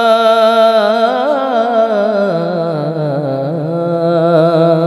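A man singing a Marathi Varkari abhang, holding one long drawn-out note with quivering ornaments that steps down in pitch about halfway through.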